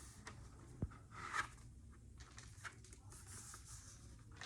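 Hard plastic snap-on case being handled and fitted onto a MacBook Air laptop: light plastic clicks and rubbing, with a sharper click about a second in.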